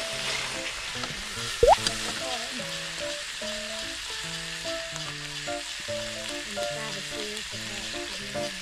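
Vegetables and pine mushrooms sizzling as they are stir-fried in a hot pan, with a steady frying hiss. About one and a half seconds in there is a brief, loud rising squeak.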